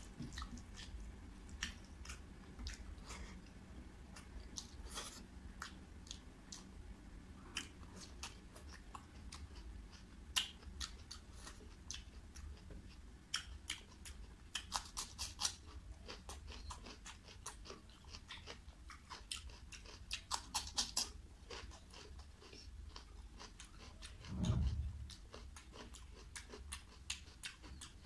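Close-up chewing of rice and curry, with quick runs of crisp crunches from bites of raw cucumber slices. One low thump near the end is the loudest sound.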